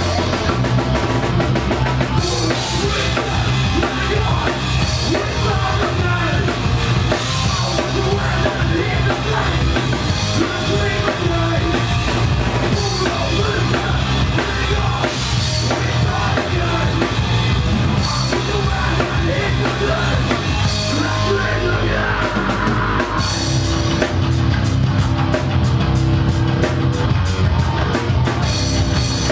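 Heavy metal band playing live: electric guitars and bass over a drum kit. About two-thirds of the way in, the drums change to a fast, even beat.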